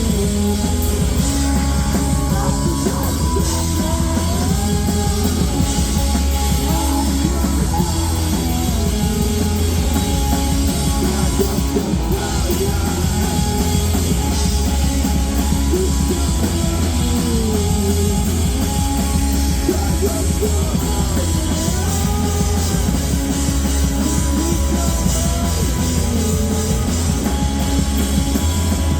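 Live rock band playing loud and dense, with electric guitars and a drum kit; the sound carries a heavy, booming low end.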